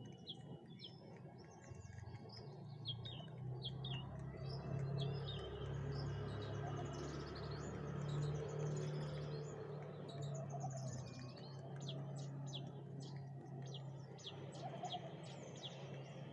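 Birds chirping: many short, high, quick chirps throughout, over a steady low hum that swells in the middle and eases off toward the end.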